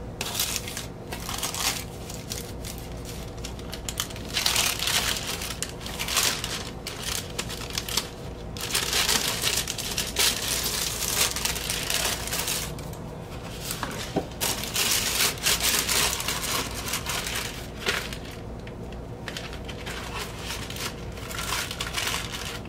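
Plastic record sleeve crinkling and rustling as a vinyl LP is slid into it and the sleeved record is pushed into its cardboard album jacket, in irregular stretches of rustle.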